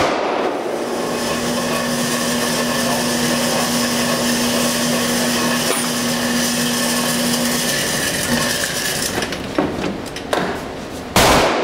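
Shooting range's electric target carrier running, a steady motor hum with a constant tone as it brings the paper target back up the lane, stopping about eight seconds in. A sudden loud noise near the end.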